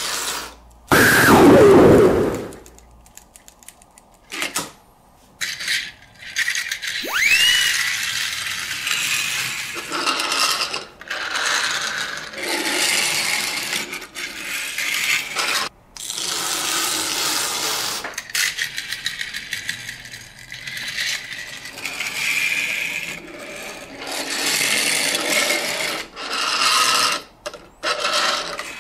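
Toy centipede's little gear motor clattering as its legs scuttle, in repeated stretches of a second or two with short pauses between. Near the start there is a loud falling sweep, and about seven seconds in a short rising whistle.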